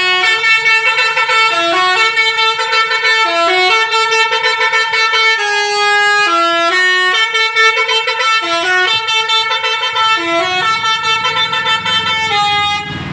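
Indonesian bus 'telolet' horn, a Basuri multi-tone horn, playing a melody of stepping notes that rise and fall about every half second to a second. It sounds loud and unbroken and stops shortly before the end.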